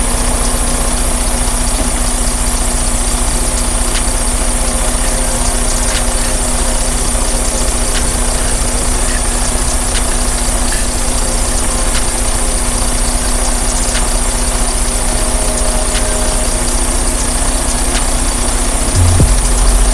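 Semi truck's diesel engine idling steadily, with a constant low hum.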